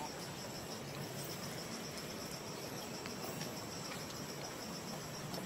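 Insects in the forest trilling steadily, a high-pitched pulsing drone that keeps on without a break.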